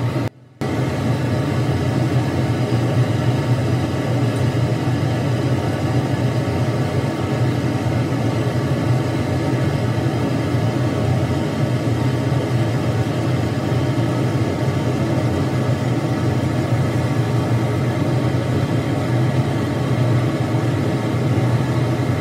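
Steady, loud low rumbling noise with an even hiss above it, starting abruptly after a brief dropout.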